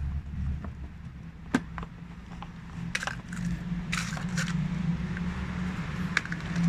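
Scattered light clicks and knocks of small plastic toy car parts being handled, over a low steady hum that grows louder about halfway through.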